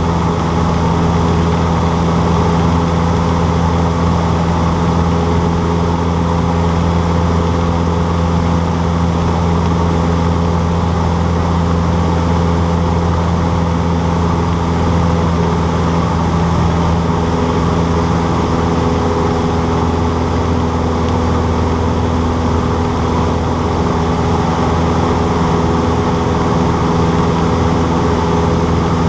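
Cessna 152's four-cylinder Lycoming engine and propeller droning steadily at constant power, a loud, even hum with no change in pitch.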